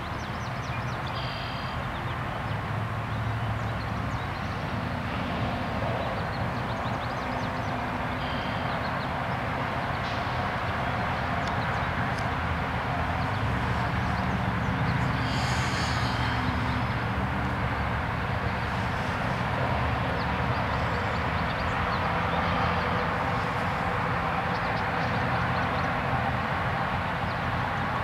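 Steady low outdoor rumble with a few short, high calls over it; the clearest call comes about fifteen seconds in.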